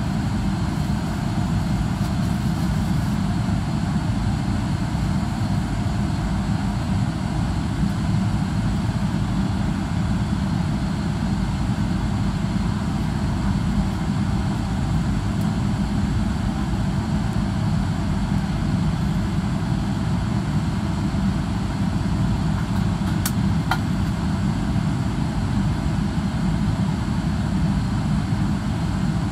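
Steady low cabin noise of a Boeing 777-300ER taxiing, its GE90 engines running at low power, heard from inside the cabin by a window over the wing.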